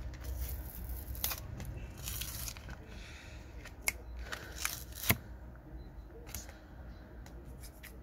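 Glued back cover of a Xiaomi Redmi smartphone being pried open with a thin wire and a plastic pick: scratchy, rasping tearing of the softened adhesive, with a few sharp clicks, the loudest about five seconds in.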